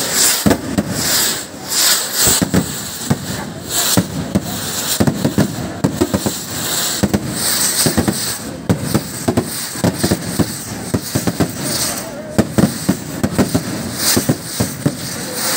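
Non-stop fireworks: rockets and firecrackers going off in a rapid, uneven string of sharp bangs and crackles.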